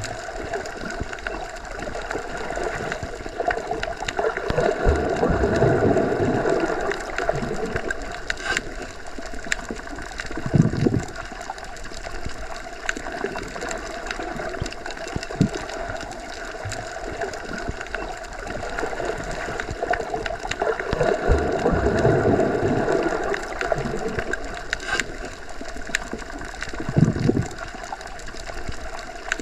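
Underwater ambience: a steady, muffled water rush with fine crackles. It swells twice, and a short low thud follows each swell, the pattern repeating about every 16 seconds.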